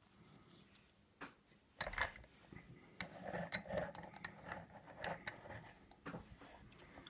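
A brass lock knocking and clicking against the metal jaws of a small bench vise as it is fitted in place: a scattering of light metallic clicks and knocks with handling rustle, the first about two seconds in.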